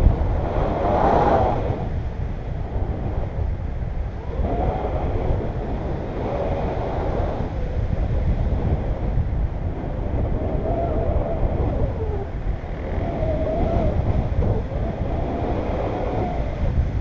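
Wind rushing over the camera microphone of a paraglider in flight, a steady low buffeting rumble, with a wavering whistle that comes and goes several times.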